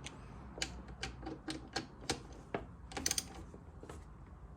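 Hand ratchet clicking while tightening brake caliper mounting bolts: a run of short sharp clicks about three a second, falling more irregular past the middle.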